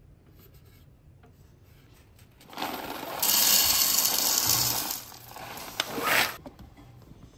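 Whole coffee beans poured from a paper bag into the clear plastic bean hopper of a Breville Barista Express espresso machine, a dense rattle for about two and a half seconds, with a shorter rattle about a second later.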